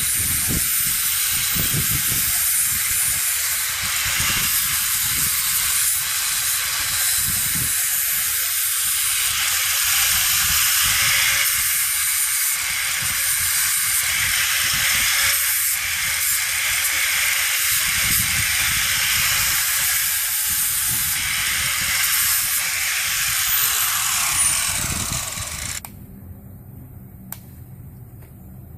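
Hoof grinder grinding a horse's hoof: a steady, loud hissing rasp that fades and stops abruptly a few seconds before the end.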